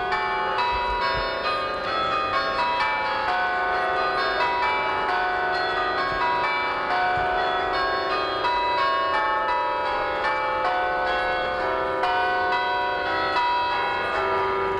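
Church bells pealing loudly next to the tournament field, a continuous rapid sequence of struck notes, some in falling runs, over a held lower tone.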